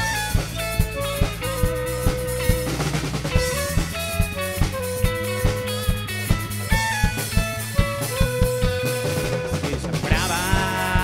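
Live rock band playing an instrumental passage: a drum kit keeps a steady beat under electric guitar and bass, while a lead melody moves in held notes. Near the end a new sustained lead line comes in with bending pitch.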